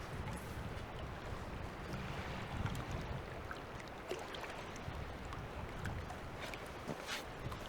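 Water lapping and sloshing under a steady outdoor rush, with a few faint small knocks.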